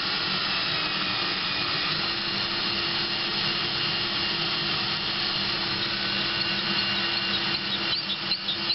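Electric drill running at a steady speed, spinning a wooden dowel that winds 14 gauge galvanized steel wire into a tight coil for chainmail rings. A few sharp clicks near the end.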